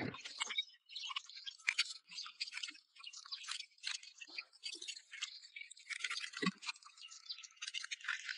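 Hand woodworking sounds: irregular short scratchy strokes of wood being rubbed and scraped, with a dull knock at the start and another about six and a half seconds in.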